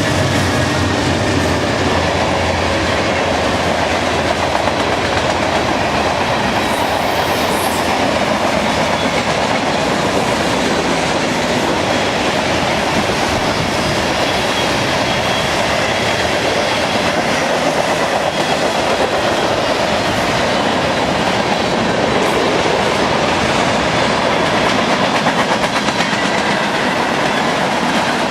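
BNSF train's cars rolling steadily past, a continuous loud rumble of steel wheels running on the rails.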